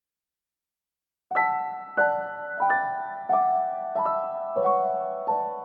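Background piano music: after about a second of silence, a slow sequence of struck notes or chords, one about every two-thirds of a second, each ringing and fading as the line steps downward in pitch.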